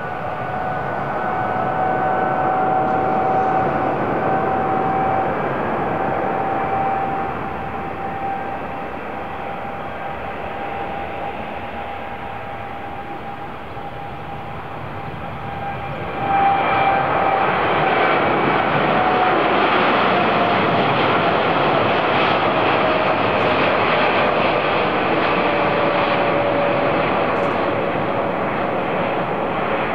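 Boeing 787-8 Dreamliner's jet engines running with a steady whine over a roar. About halfway through, the roar jumps suddenly louder, as the engines go to takeoff power, and the whine then slowly drops in pitch.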